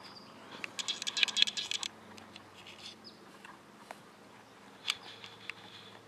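Nubian goat kid biting off and chewing grass close by: a dense run of crisp crunching clicks about a second in, then scattered single clicks.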